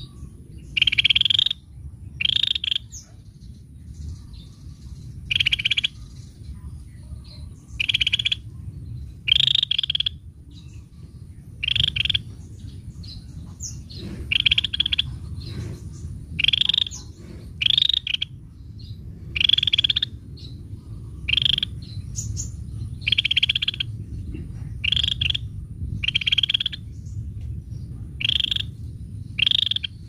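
Caged cucak matahari calling, a short call of about half a second repeated every one and a half to two seconds, some calls doubled, over a steady low background rumble.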